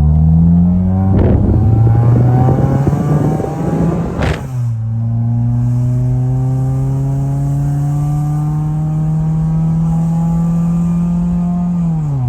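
1995 Toyota Celica's four-cylinder engine accelerating hard through the gears. Its pitch climbs, drops sharply at an upshift about four seconds in, climbs steadily again, then drops at another shift near the end.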